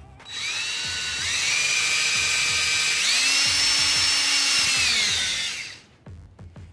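Power drill running while drilling a hole for a homemade rubber grommet; its whine steps up in pitch about a second in and again around three seconds, then winds down and stops just before six seconds.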